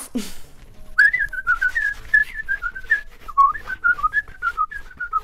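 A person whistling a wandering tune, starting about a second in, over a run of short scratchy strokes.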